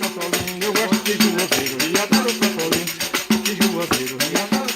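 Pandeiro played in a quick, steady rhythm, its jingles rattling on every stroke, with a melody instrument playing held notes over it: an instrumental passage after the singing stops.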